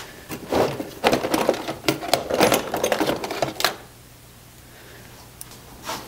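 Rummaging through a drawer of tools: a rapid jumble of clattering clicks and rattles for about three and a half seconds, then it goes quiet apart from one click near the end.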